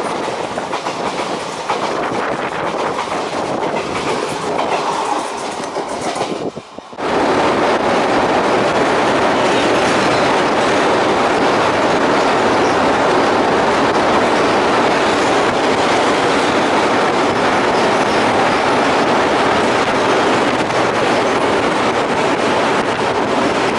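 Indian Railways passenger train running at speed, its wheels clattering over the rail joints, while another train passes on the next track. After a brief dip about seven seconds in, the noise turns louder and steady as the train crosses a steel truss bridge.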